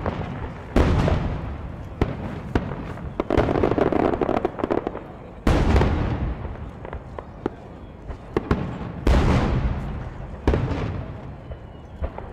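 Aerial firework shells bursting overhead: four deep booms a few seconds apart, each dying away over a second or so, with scattered sharp pops and crackle in between.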